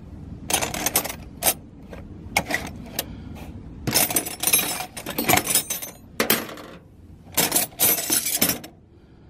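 Steel Snap-on angle wrenches clinking and clattering against each other as they are handled and set down, in several short, irregular bursts of metal-on-metal clinks.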